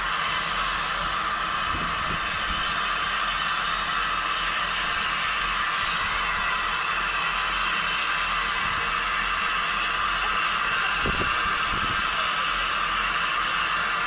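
Peckett 0-4-0 steam locomotive letting off steam, a steady hiss.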